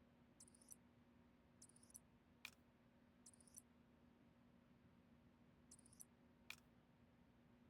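Faint small clicks and ticks over a low steady hum: a few short high-pitched clicking patters and two sharper single clicks, one about two and a half seconds in and one near the end.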